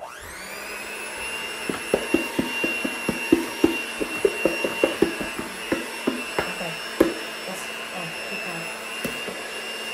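Electric hand mixer switching on and spinning up, then running steadily with a high whine as its beaters mix banana bread batter. A run of quick knocks, several a second, comes in the middle.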